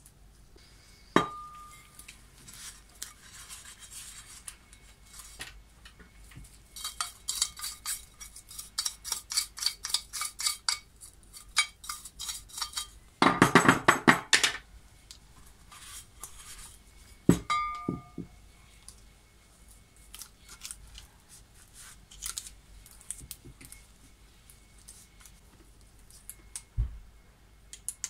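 Green scouring pad scrubbing metal parts of a dismantled washing-machine universal motor in quick strokes, louder in a run about halfway through. Parts clink as they are handled and set down, with two short ringing clinks, one about a second in and one around 17 seconds.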